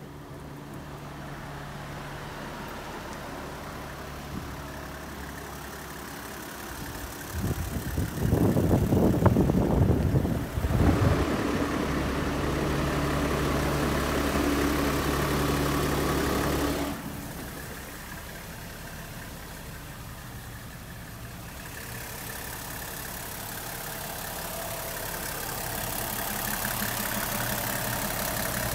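Toyota 1HZ 4.2-litre inline-six diesel in a Coaster bus idling steadily, at its loudest from underneath by the exhaust in the middle of the stretch. A loud rushing noise covers it for a few seconds about a third of the way in.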